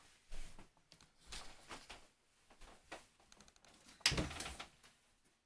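Scattered rustles and small clicks of people moving about and handling the phone in a small room, with one louder knock-like rustle about four seconds in.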